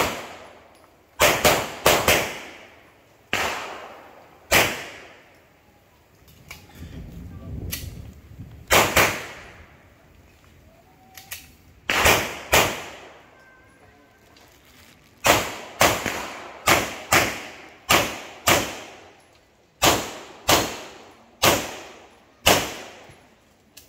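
Handgun shots fired in pairs and quick strings, about twenty in all, each sharp crack followed by a short echo off the surrounding concrete walls. A few seconds' gap near the middle breaks the strings while the shooter moves to a new position.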